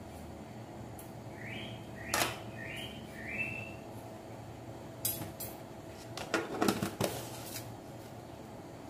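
Spoon scooping sugar from a jar, with sharp clinks and a cluster of clatter from the jar and its lid in the second half. Four short rising chirps sound about two seconds in.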